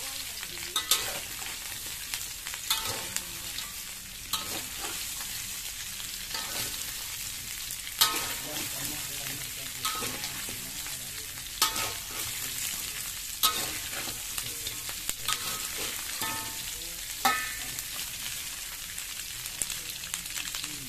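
Meat pieces sizzling in a hot steel wok while a metal spatula stirs and turns them, clanking against the wok every second or two with a short metallic ring.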